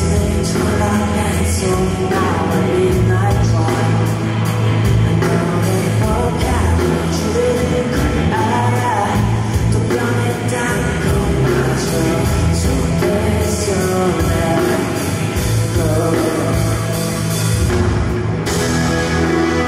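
Live rock band playing: a male singer's voice over electric guitar, bass and drums.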